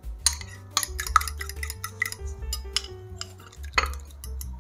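Kitchen utensils clinking against a dish in irregular taps, over background music with a plucked melody.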